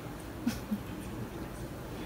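A quiet pause in a hall: low steady room noise, with one short click about half a second in and a faint low sound just after it.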